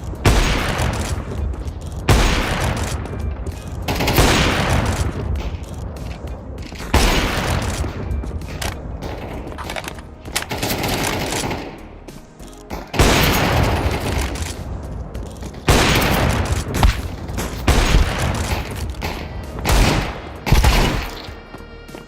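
Bursts of video-game gunfire and explosions over background music. The loud, sudden blasts come every two to three seconds, each fading out over a second or so.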